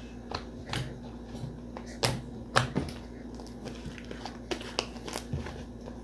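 Hands squeezing and stretching butter slime, giving irregular sticky clicks and pops, the loudest about two seconds in.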